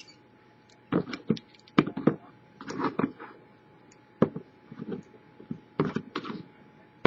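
Master Lock No. 3 padlocks being handled after picking: a dozen or so irregular sharp clicks and knocks, some in quick clusters.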